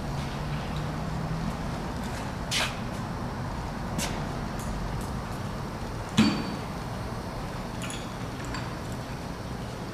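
Steady low hum of shop background noise with a few scattered clanks and knocks, the loudest about six seconds in.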